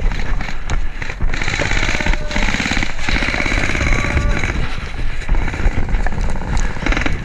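Airsoft gun firing full-auto, a fast rattle that is heaviest from about one and a half to four seconds in, over low wind rumble on the microphone.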